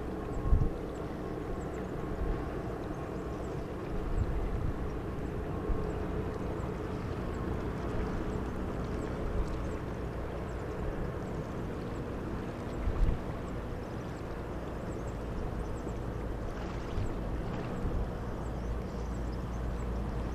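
Steady distant rumble of the Boeing KC-135R Stratotanker's four CFM56 turbofan engines, with a few brief low thumps, the largest about two-thirds of the way through.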